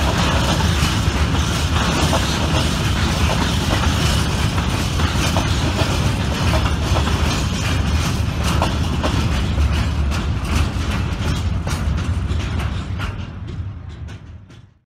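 Freight train of Fas-type high-sided open wagons rolling past, the wheels clicking over the rail joints. The sound fades over the last few seconds as the train pulls away, then cuts off abruptly.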